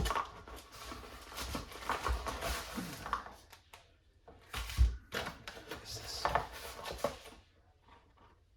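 Package being opened by hand: irregular rustling and crinkling of packaging with scattered knocks, the loudest a sharp knock about five seconds in.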